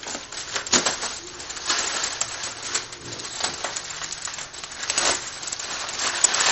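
Plastic bubble wrap crinkling and rustling as it is pulled and torn open by hand, with many short crackles.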